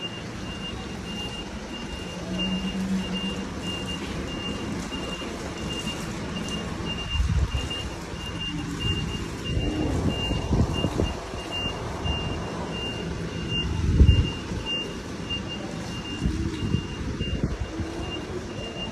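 Isuzu box truck reversing: its back-up alarm sends out a steady series of high beeps over the engine running at low speed. The engine swells louder twice, near the middle and about three-quarters of the way through.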